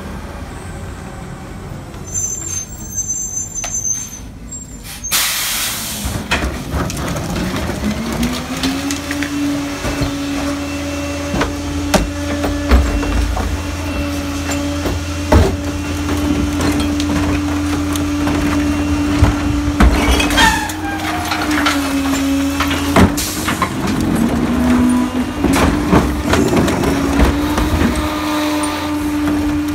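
Pak-Mor rear-loader garbage truck working its hydraulic cart tipper to dump recycling carts into the hopper: a short hiss of air about five seconds in, then the engine steps up to a steady higher drone about eight seconds in, with repeated knocks and clatter as carts bang and recyclables fall into the hopper.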